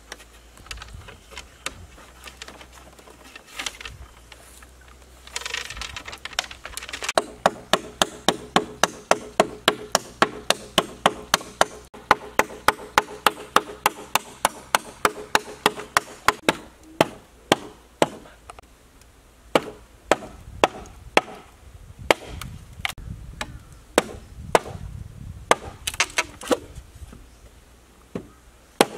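Hand tools striking bamboo: a rapid run of chopping strokes, about three a second, with a faint ringing from the bamboo. About halfway through they give way to slower, irregular knocks, ending with a wooden mallet driving a chisel into a bamboo pole.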